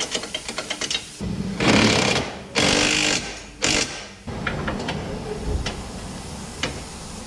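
Cordless impact wrench hammering on a bolt of a rear suspension arm, in three short bursts starting about a second in. Before that there is a quick run of light clicks.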